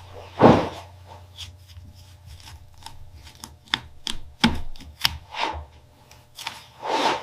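Foley sound effects: a loud swish about half a second in and another near the end, with a run of sharp, irregular taps and clicks between them, over a low steady hum.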